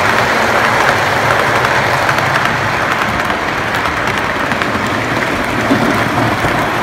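O scale model trains running on three-rail track: a steady rushing clatter of metal wheels and cars rolling past close by.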